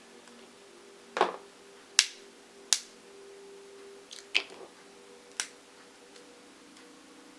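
Steamed crab leg shells cracking sharply, about five cracks spread over several seconds.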